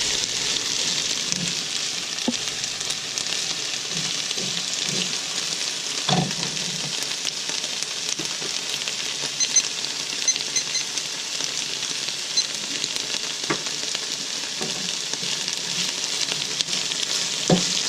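Food sautéing in a frying pan over medium heat: a steady sizzle, with a few brief knocks.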